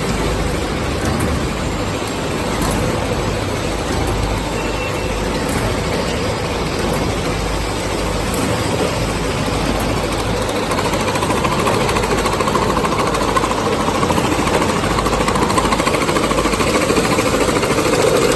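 Instant-noodle cup packaging machine running with a steady, rapid mechanical clatter that grows a little louder about eleven seconds in.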